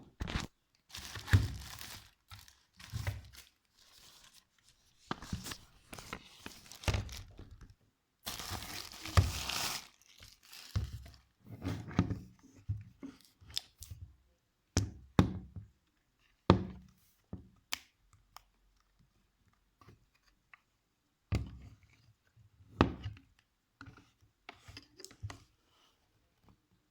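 Speaker packaging being opened by hand: irregular tearing and crinkling of wrapping, with a longer rip about a third of the way in and several thunks of the box and parts being handled and set down.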